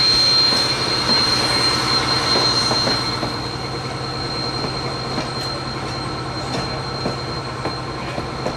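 A narrow-gauge steam train rolling slowly past at close range: a steady high squeal over the running gear, easing off about three seconds in as the locomotive's tender moves on, then the wooden passenger coaches rolling by with occasional clicks of wheels over rail joints.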